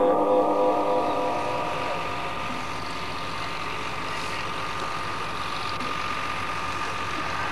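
Steady hum and hiss with a few fixed tones. The last held note of the Quran recitation fades out in the first second or so.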